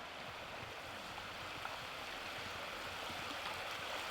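Steady rush of shallow water flowing across a road.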